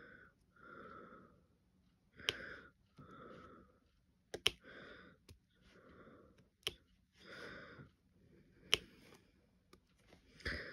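Sharp clicks of a diamond painting drill pen, its tip tapping drills off the plastic tray and pressing them onto the canvas, about one every two seconds.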